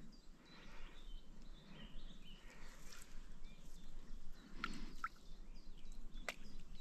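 Songbirds chirping faintly and irregularly over quiet outdoor background noise, with a few faint sharp ticks.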